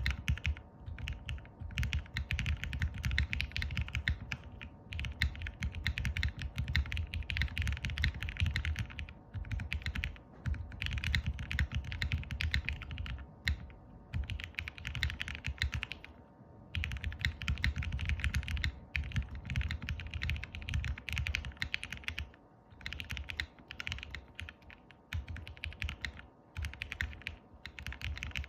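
Typing on an E6.5 65% custom mechanical keyboard with lubed and filmed vintage Cherry MX Black linear switches and CRP keycaps: fast runs of keystrokes, each a few seconds long, separated by brief pauses.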